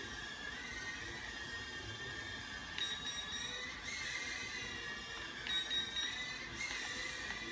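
Mini FPV nano quadcopter's motors and propellers whining at a high pitch that wavers up and down as the throttle changes while it hovers. Twice the whine climbs higher for about a second and ends in a short rush of noise.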